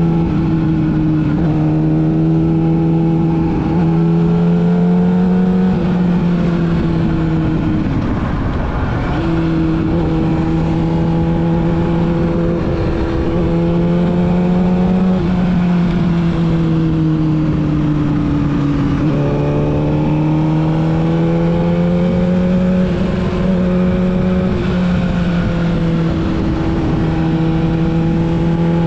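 Yamaha YZF-R6's inline-four engine through a full-system exhaust, riding under load. Its pitch climbs repeatedly and drops back at each gear change, with one longer easing off and fall in pitch about midway.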